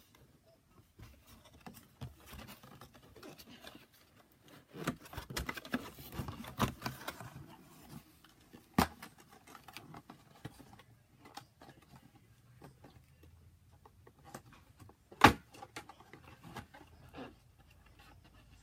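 Toy packaging being handled and pulled at: scattered faint rustling and small clicks of plastic and cardboard, with a sharp snap about nine seconds in and a louder one about fifteen seconds in.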